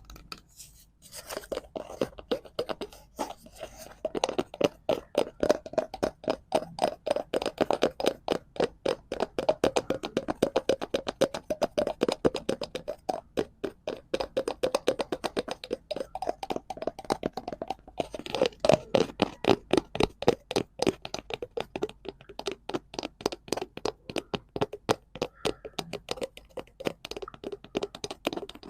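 Rapid fingertip tapping on a cardboard prop, many quick taps a second, after a short pause about a second in.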